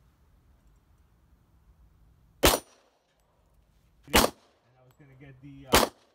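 Three semi-automatic pistol shots, about one and a half seconds apart, with a short voice between the second and third.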